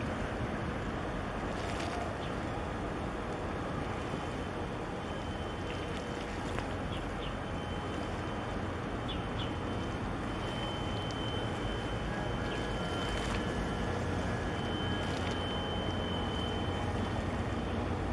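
Steady wind rumble on the microphone over an even harbour hiss, with a few faint thin whistle-like tones now and then.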